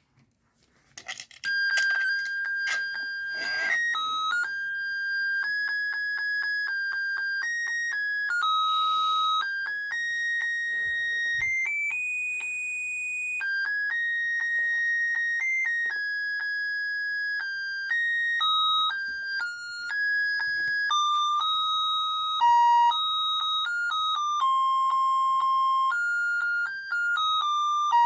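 Battery-powered dancing Santa figure playing an electronic Christmas melody: a single line of thin beeping notes stepping up and down, starting about a second and a half in.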